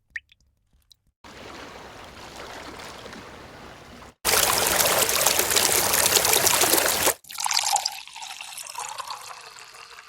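A run of separate water sound effects: a few drips in the first second, then a steady trickle of flowing water, then much louder rushing water that cuts off suddenly about seven seconds in, followed by quieter flowing water with some gurgling.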